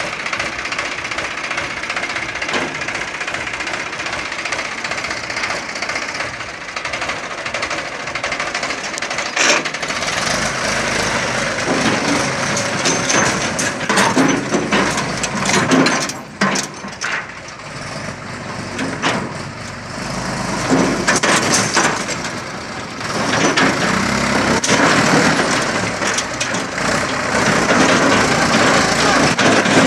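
Mahindra 265 DI tractor's three-cylinder diesel engine working under heavy load as the tractor strains to pull its trailer free of where it is stuck. The engine eases off twice in the middle and picks up again, with scattered knocks.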